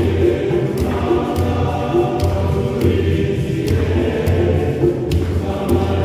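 A choir singing a lively church song over a steady low beat of about two beats a second.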